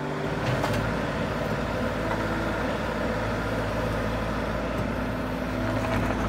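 Mini excavator's diesel engine running steadily while its bucket digs a trench through rocky soil, with a few sharp knocks.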